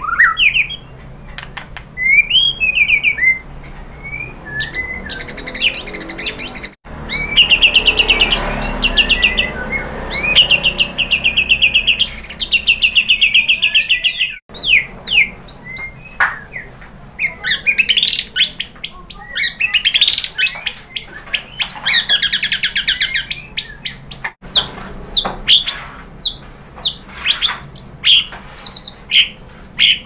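White-rumped shama singing a long, varied song: fast trills of rapidly repeated high notes, quick sweeping whistles and chips, with three very short dropouts where the sound cuts out.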